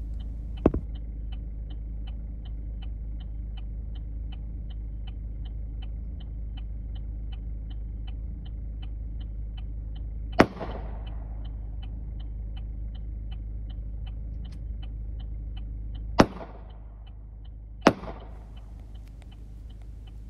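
Three pistol shots fired outdoors, heard from inside the car: sharp cracks with ringing echoes, the first about halfway through and the last two under two seconds apart near the end. Under them a low steady hum and a fast steady ticking, about three ticks a second, with a single thump about a second in.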